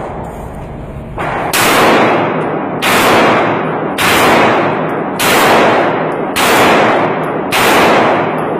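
Six gunshots on an indoor shooting range, about one every second and a quarter, each report ringing on in the hard-walled range for most of a second.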